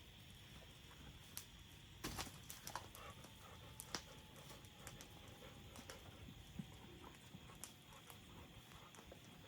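Faint, sparse crackling and sharp pops of a fire burning dry coconuts, with a short cluster of pops about two seconds in, over a steady high insect hum.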